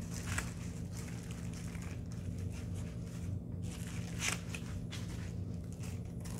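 Paper food wrapper crinkling and rustling in short bursts as a burger is unwrapped by hand, over a steady low hum.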